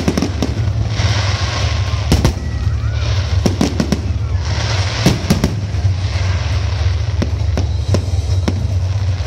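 Aerial fireworks display: shells bursting with sharp bangs at irregular intervals, several in quick succession around three and a half seconds in, with stretches of crackling hiss between them over a steady low rumble.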